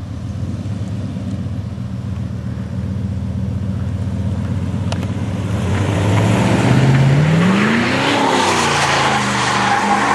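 1988 GMC Sierra pickup's engine running, then revving hard in a burnout. Its pitch climbs steeply about seven seconds in and drops back, while tyre squeal and hiss build from about halfway.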